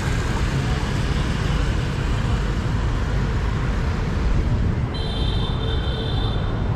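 Steady city street traffic noise: a constant rumble of motorbikes and cars going past. About five seconds in, a high steady tone sounds for about a second and a half.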